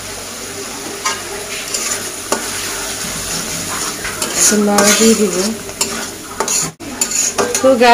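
Metal spatula stirring and scraping a spice paste of onion, ginger-garlic, turmeric and chili in a karahi, the masala sizzling in the oil as it is fried down (kosha). A louder stretch with a pitched sound comes in about halfway, and the sound breaks off for a moment near the end.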